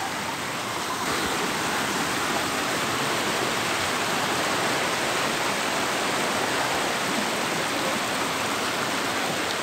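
Fast-flowing muddy stream water rushing and churning steadily.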